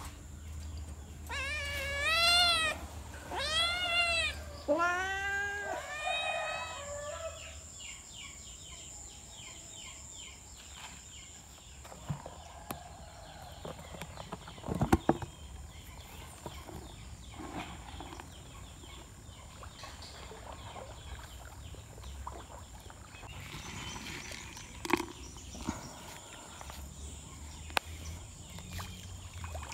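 A cat meowing about four times in the first several seconds, each meow rising and then falling in pitch. After that, quiet outdoor background with a few sharp knocks, the loudest about halfway through.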